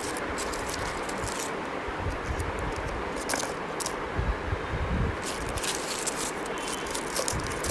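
Light handling sounds of paper-wrapped homemade cough drops being put into an airtight jar: a few faint clicks and scrapes over a steady background hiss, with a couple of low thuds around the middle.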